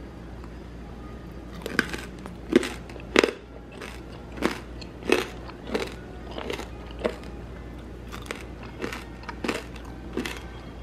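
Crispy deep-fried pork belly crackling crunching: about a dozen sharp, crisp crunches at a steady pace of roughly one and a half a second, starting about two seconds in.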